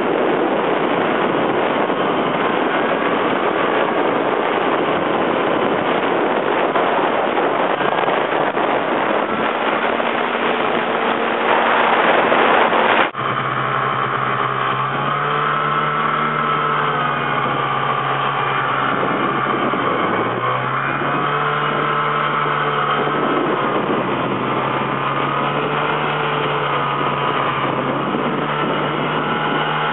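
Arctic Cat Jag snowmobile's two-stroke engine running under way, heard from the sled, with a dense rushing noise over it. About 13 seconds in, after a louder surge, the sound cuts off abruptly to a cleaner, steady engine note that shifts up and down in pitch a few times.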